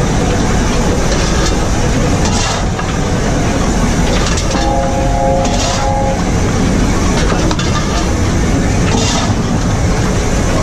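Cab noise on the footplate of an LNER Class A4 steam locomotive under way: a loud, steady rumble and clatter of the moving engine. Every few seconds the fireman's steel shovel scrapes into the coal in the tender. About halfway through, a short steady pitched tone sounds for about a second and a half.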